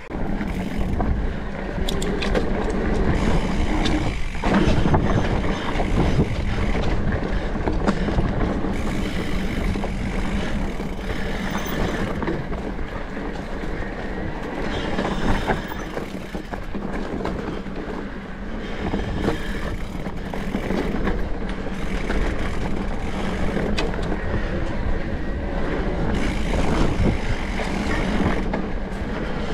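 2020 Specialized Turbo Levo electric mountain bike being ridden over a rough trail: a steady rumble of tyres and wind on the action camera's microphone, with constant small rattles and knocks from the bike.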